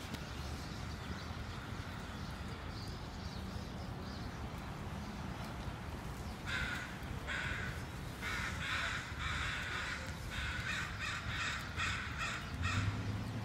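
Crows cawing: a long run of harsh caws, about two a second, starting about six seconds in, over a steady low rumble.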